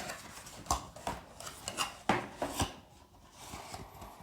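Hands opening a small cardboard product box and handling what is inside: rubbing and sliding of cardboard, with a few light knocks, one about two-thirds of a second in and two more about two seconds in.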